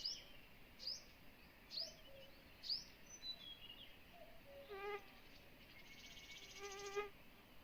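Birds calling: a short, high call that drops in pitch repeats about once a second at first, then a lower call comes twice, the second longer and buzzy, lasting about a second.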